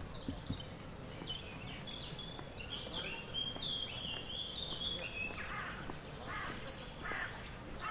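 Birds chirping and singing in the trees over a steady outdoor background hum. The calls are busiest from about two to five seconds in.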